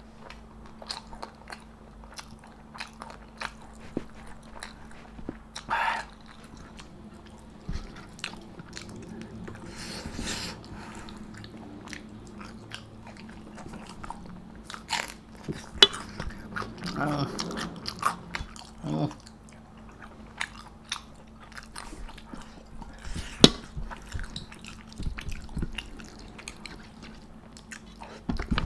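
Close-up eating sounds: a person chewing and biting with many small crunches, wet mouth clicks and smacks, plus a few brief low hums from the eater. A faint steady hum runs underneath.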